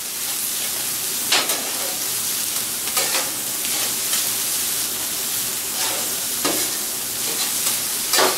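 Fried rice sizzling on a hot flat-top griddle as it is turned with two metal spatulas. The spatulas scrape and clack on the griddle plate several times.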